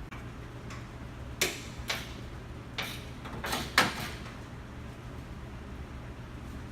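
Several sharp metal knocks and clacks at uneven spacing, clustered between about one and a half and four seconds in, from tools working on the window glass's 5/16 mounting nuts inside a 1971 Mustang door. A steady low hum runs underneath.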